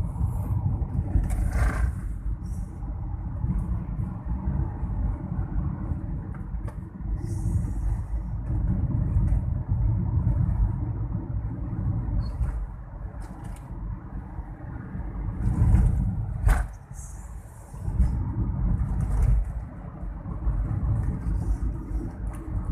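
Road noise of a vehicle travelling along a highway: a steady low rumble with brief hissing swells now and then, and one sharp click about three-quarters of the way through.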